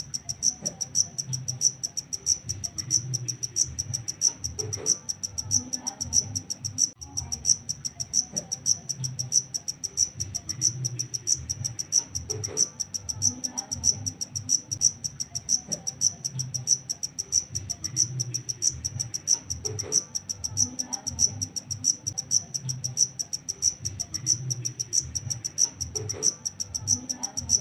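Black field cricket chirping: a steady, high-pitched trill repeated in short, even chirps several times a second.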